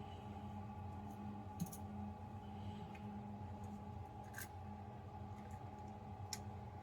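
Faint, sparse metallic clicks of lock-picking tools working in a padlock, three light ticks a couple of seconds apart, over a steady low background hum.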